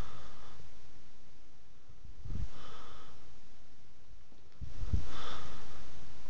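Two short huffs of breath from a small dog play-fighting with a hand, about two and five seconds in, each with a low thump close to the phone.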